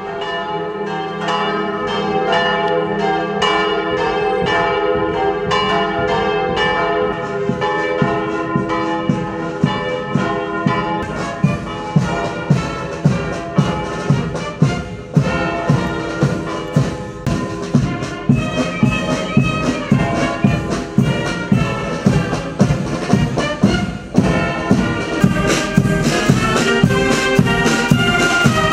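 Marching band of brass, woodwinds and drums playing a march, with bells ringing. From about eleven seconds in, a steady drumbeat of about two beats a second comes through strongly.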